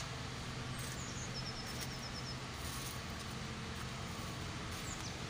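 Steady outdoor background hum and hiss, with a short rapid run of about nine high chirps from a small bird about a second and a half in.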